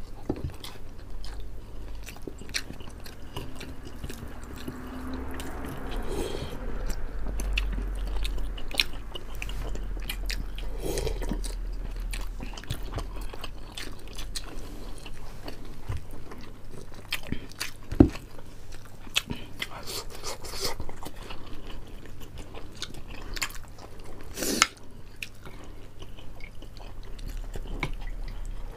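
Close-miked mukbang eating: two people biting and chewing pork leg meat and rice by hand, with wet mouth smacks, occasional crunches and scattered sharp clicks.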